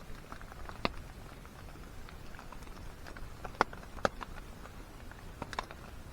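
Rainy campsite ambience: a faint steady hiss broken by a handful of sharp ticks and pops, one about a second in, two close together around four seconds, and two more near the end.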